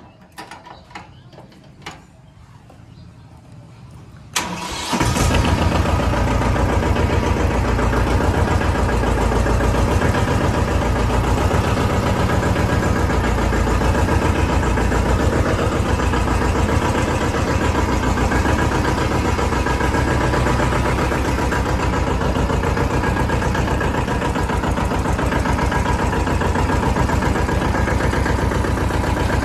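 A few light clicks, then a Mahindra compact tractor's diesel engine cranks briefly and catches about four seconds in. It then runs steadily with an even, rhythmic beat.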